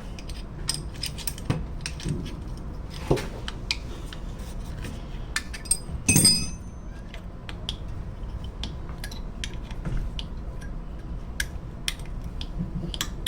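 Metal tools and engine parts clinking and tapping as they are handled during an engine teardown, with scattered light clicks and one louder ringing metal clank about six seconds in.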